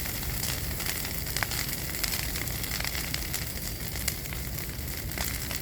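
Bonfire burning with a steady hiss, broken by a few sharp pops of crackling wood.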